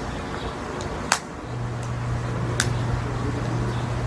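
A guitar pick used as a pry tool clicks twice against the edge of an iPhone 6 screen as it is worked open. A steady low hum comes in about a second and a half in.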